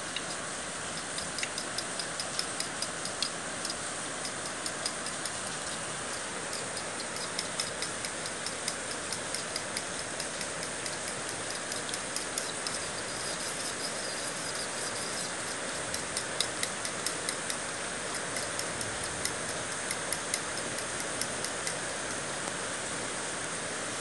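Two eggs being beaten by hand in a bowl: a utensil clicks against the bowl in quick spells over a steady background hiss.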